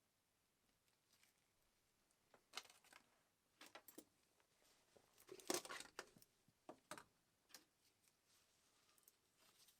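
Faint small handling noises: scattered clicks, taps and rustles, busiest through the middle with the loudest cluster a little past halfway.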